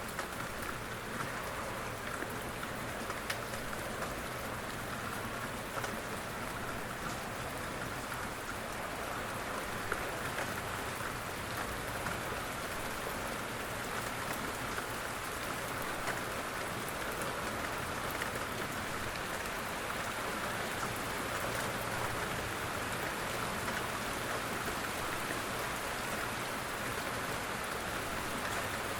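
Steady rain falling on a surface, a constant hiss with scattered individual drop ticks.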